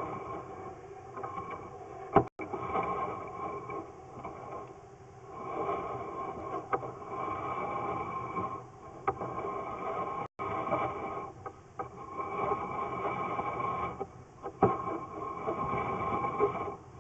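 Sewer inspection camera equipment in use: a steady mechanical whine over irregular rumbling and scraping as the camera runs through the drain pipe.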